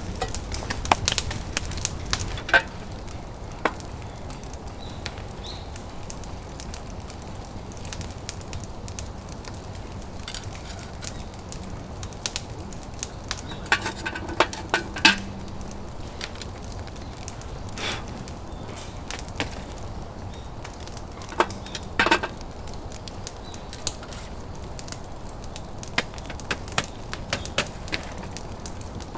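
Irregular sharp cracks and clicks of wood. Two clusters of louder knocks come about 14 and 22 seconds in.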